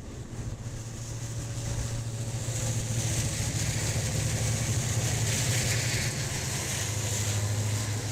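A train's diesel locomotive engine running with a steady low hum. It grows louder over the first few seconds as it draws near, with a hiss of rolling noise above it.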